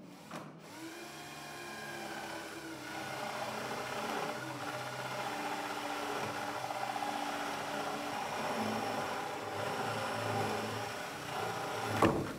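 Handheld power drill boring into the wooden edge of a door through a clamped guide block, the motor running steadily under load with its pitch shifting as it cuts. A sharp knock just before the end.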